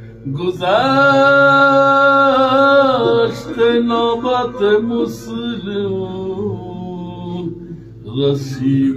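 A solo male voice chanting a religious recitation, unaccompanied. A long held, ornamented note starts about half a second in and lasts to about three seconds, followed by a run of shorter, wavering melodic phrases.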